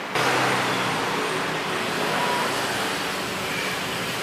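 Motor scooter engine running steadily close by, cutting in suddenly just after the start, under a broad hiss of noise.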